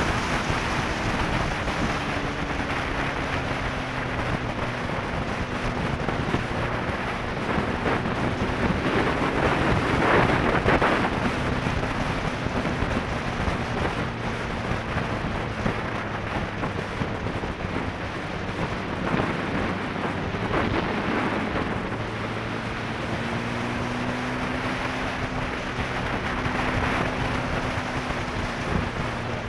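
Heavy wind rush buffeting the microphone of a camera mounted on a sport bike riding at speed, with the engine's low hum underneath, rising and falling a little with the throttle. The wind surges loudest about ten seconds in.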